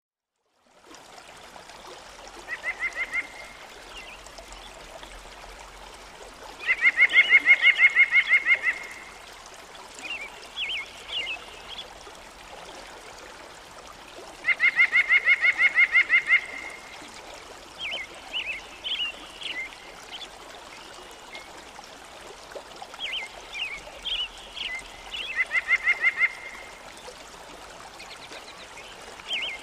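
Birds calling over steady running water: several rapid pulsed trills of about two seconds each, the loudest near the start and the middle, between bursts of short chirps.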